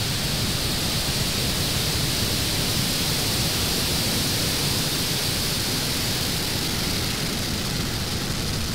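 Falcon 9 first stage climbing just after liftoff, its nine Merlin 1D engines at full thrust: a loud, steady low rumble with a hiss over it, easing slightly near the end.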